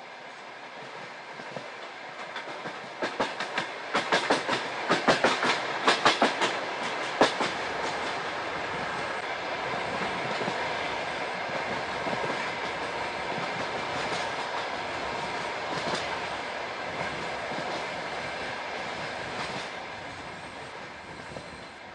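Passenger train hauled by a TEP70 diesel locomotive going by. A quick run of wheel clicks over rail joints builds a few seconds in, then the steady rolling noise of the carriages carries on and fades near the end.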